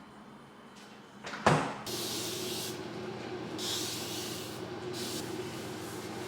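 A refrigerator door knocks open about a second and a half in, followed by a steady hum. Over the hum come on-and-off bursts of rustling as items inside the fridge are moved around.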